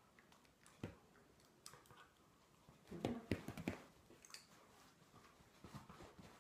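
Quiet room with scattered soft taps and clicks as a miniature poodle moves about on a cushion and rug and takes treats from a hand, with a short louder cluster of sounds about three seconds in.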